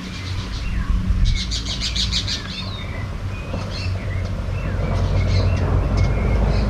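Several birds chirping and calling, with a quick run of high, rapidly repeated notes about a second in, over a steady low rumble that grows louder toward the end.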